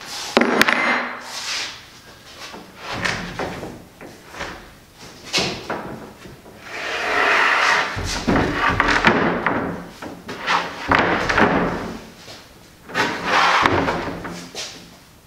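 Large sheets of plywood and boards being shifted and slid in an upright stack: a series of wooden knocks and thuds, with longer scraping stretches as the sheets rub against each other.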